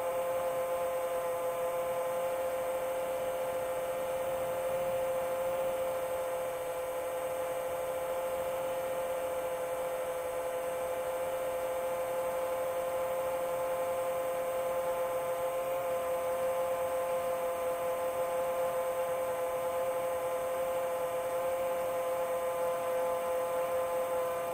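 Chimera 7 long-range FPV quadcopter's motors and propellers running at steady cruise throttle: a constant hum with a strong single pitch and fainter overtones above it, barely changing.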